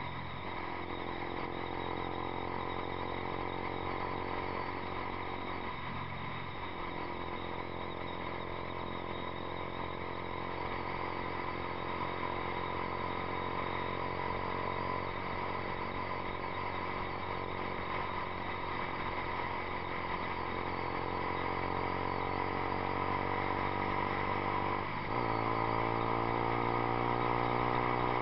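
Yamaha YZF-R15's single-cylinder four-stroke engine running through a Two Brothers Racing aftermarket exhaust while riding, heard from the bike itself. The engine note is steady, breaks briefly about six seconds in and again near the end, and then rises steadily in pitch as the bike accelerates.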